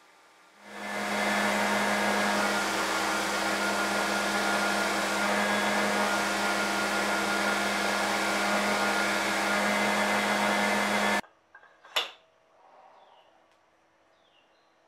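Belt grinder running while cocobolo wood handle halves are ground against the belt: a steady hiss of sanding over a constant motor hum. It starts about a second in and stops abruptly about eleven seconds in, followed by a single sharp knock.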